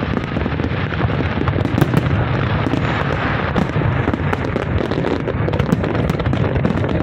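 Large aerial fireworks display: shells bursting one after another in a continuous stream of booms and crackles, with no pause.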